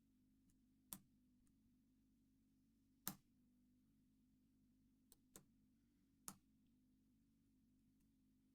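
Lock picking in a Yale Y110/40 padlock: five small, sharp clicks of the hook pick and pin tumblers in the keyway, two of them close together, the third loudest, over a faint steady hum in near silence.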